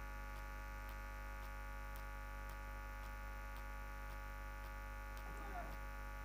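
Steady electrical mains hum in the audio line, with many even tones held, and faint ticks about once a second. A faint, brief voice-like sound comes near the end.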